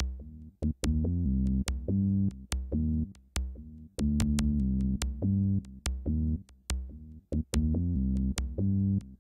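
Electronic background music: synthesizer notes over a drum-machine beat with sharp, regular hits.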